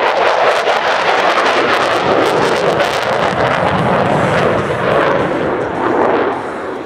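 F-16 fighter jet passing close, loud jet noise with a rapid crackle, easing off near the end.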